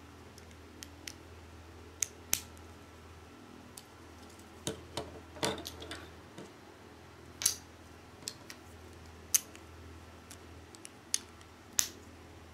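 Lego bricks clicking as they are pressed and snapped together by hand: about a dozen short, sharp plastic clicks at irregular intervals, the loudest in the second half, over a faint steady low hum.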